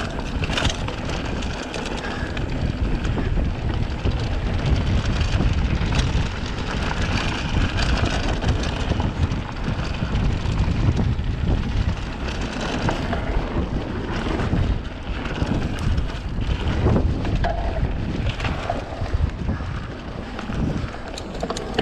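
Mountain bike descending a dirt trail, heard from a handlebar camera: wind buffeting the microphone over a steady low rumble of the tyres rolling on dirt and stones, with frequent knocks and rattles from the Mongoose Teocali full-suspension bike over the bumps.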